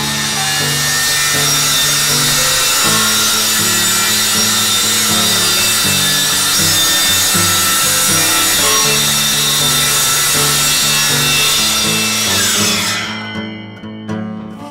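DeWalt 60V FlexVolt cordless circular saw cutting a long straight rip through a plywood sheet, running steadily under load. About thirteen seconds in the trigger is released and the blade winds down.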